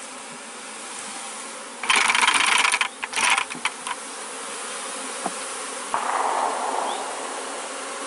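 A honeybee swarm buzzing steadily around the hives. About two seconds in there is a loud rush, then a few sharp knocks, as a plastic bucket of swarm bees is tipped out and tapped against an open hive box to hive the swarm. A softer rustle follows about six seconds in.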